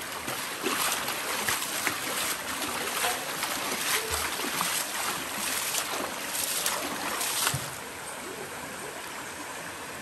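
Shallow river water rushing steadily over rocks, with close, irregular splashing and sloshing as hands scoop and move water in the shallows; the splashing stops about three-quarters of the way through, leaving the steady rush.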